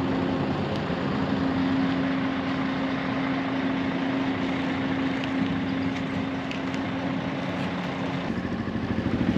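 An engine running steadily, a constant hum over general outdoor background noise. A little before the end it changes to a rapidly pulsing engine sound.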